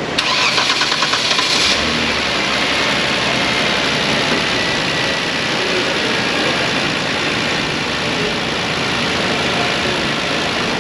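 Kia engine with about 280,000 miles on it cranked over by the starter for about a second and a half, then catching and idling steadily. The idle has a slight hunt and skip, a misfire that new coils have not fully cured, which the mechanic suspects comes from a cam phaser not returning home at idle.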